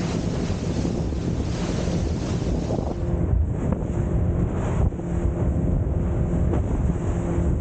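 Wind buffeting the microphone and water rushing past the hull of a speedboat running at speed, with a low, steady engine hum underneath.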